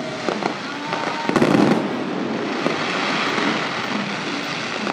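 Fireworks going off in a continuous barrage, crackling and popping steadily, with a louder bang about a second and a half in.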